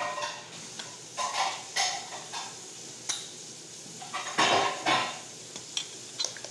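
Kitchen clatter from a can and a stainless-steel mixing bowl being handled: several short knocks and scrapes, the loudest about four and a half seconds in.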